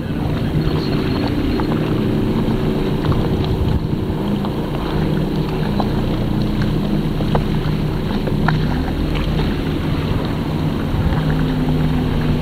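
Boat motor running steadily at low speed, a constant hum whose pitch shifts slightly now and then.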